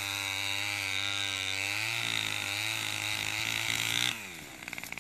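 A small engine running steadily at a constant pitch, then shutting off about four seconds in, its pitch falling as it winds down.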